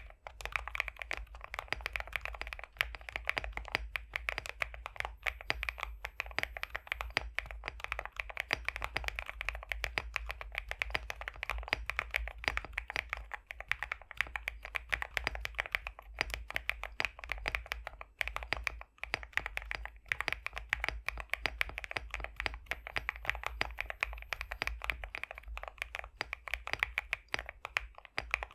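Continuous fast typing on a High65 v2 custom mechanical keyboard with pre-lubed BSUN X linear switches. The keystrokes are thocky and creamy, with a brief pause a little past halfway.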